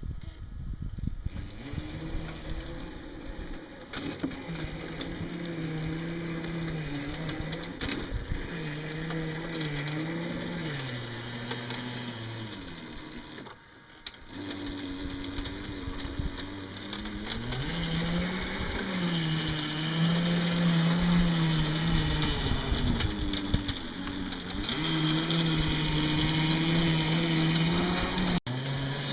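Small bulldozer's engine running under load, its pitch rising and falling with the throttle. It drops away briefly about halfway through.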